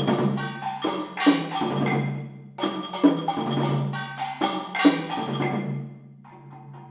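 Percussion trio on metals, woods and drums playing struck figures: clusters of sharp strokes with ringing metallic tones, coming every second or two, then dropping to softer playing about six seconds in.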